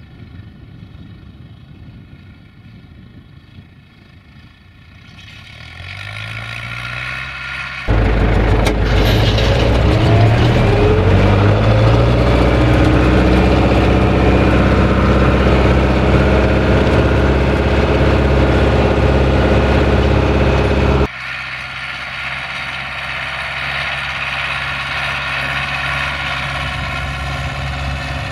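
International 844S tractor's four-cylinder diesel engine running steadily under load while pulling a harrow, growing louder as it draws closer. About eight seconds in the sound jumps suddenly to a much louder close-up of the engine with the harrow's rattling noise over it. About 21 seconds in it drops back to the steadier engine note heard from the field.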